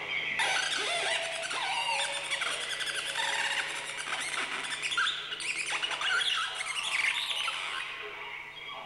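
Electronic feedback from piezo discs resonating in mylar balloons: squealing, chirping tones that slide up and down in pitch as a bare hand on the balloon acts as a variable resistor. A steady low hum runs underneath, and the tones fade out near the end.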